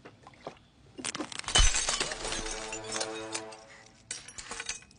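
Glass shattering: a sudden crash with a heavy thump, then ringing that fades over about two seconds, and a few small clinks near the end.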